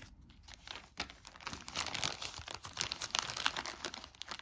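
Thin clear plastic bag crinkling and rustling in the hands, an irregular crackle that thickens about a second in.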